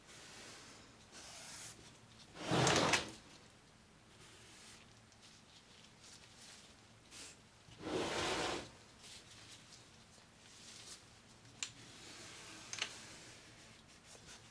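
Wooden soap loaf mold sliding across a tabletop as it is turned around, twice: a short scraping rush a few seconds in and a longer one about halfway through. Light clicks and rubbing follow near the end.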